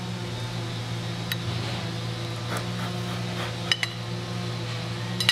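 Steady low mechanical hum with a few faint, sharp clicks.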